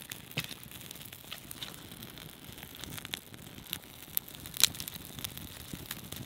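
Small campfire of bark tinder under a stick teepee catching, crackling with irregular sharp pops and snaps, the loudest about four and a half seconds in.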